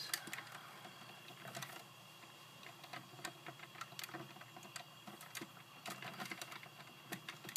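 Fingers working the snap-clip rear body panel of a 1/18-scale diecast Smart Fortwo model: faint, irregular small plastic clicks and taps as the clips are pried loose.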